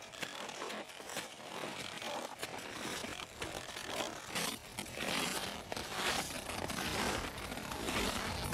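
Boots crunching and scraping through snow in irregular footsteps, getting louder.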